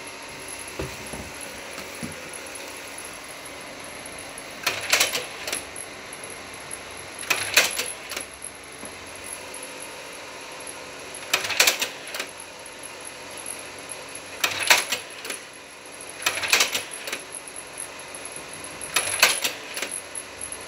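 Kodak Ektapro 3000 carousel slide projector changing slides six times, each change a short clattering burst of clicks from its slide-transport mechanism, every two to four seconds, over the steady hum of its cooling fan.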